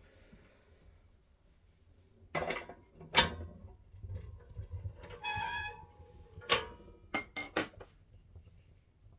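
Wood fire crackling in a fireplace: scattered sharp pops and clicks, a few close together near the end, and a short whistling squeal about five seconds in.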